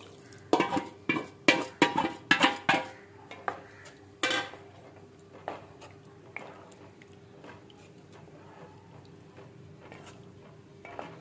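Cooking utensils clattering against a metal cooking pan: a quick run of about eight sharp knocks in the first three seconds, one more shortly after, then only a few light taps as the thin gravy is stirred.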